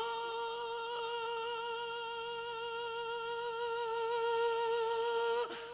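A man's voice holding one long, steady sung note in a chanted recitation (tarannum) of an Urdu naat, breaking off near the end.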